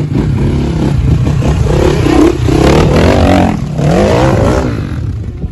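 Motorcycle engine revving up and down, its pitch rising and falling several times over a rough low rumble.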